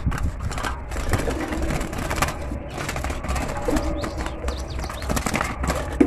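Rattling and scuffling of a gloved hand working inside a wire budgie cage, with a few short budgie chirps.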